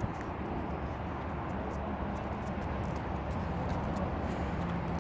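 Steady low vehicle rumble with a few faint ticks over it.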